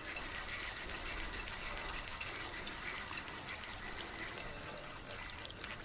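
Water splashing and sloshing at the surface as a hooked rudd is played in to the bank on a float rod, with scattered small splashes over a steady wash.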